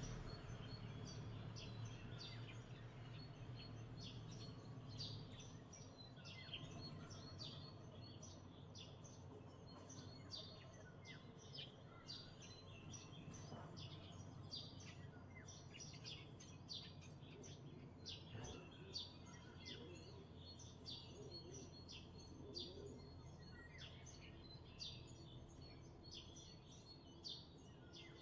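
Faint morning chorus of several songbirds, with many short high chirps and song phrases overlapping throughout, over a low steady background rumble.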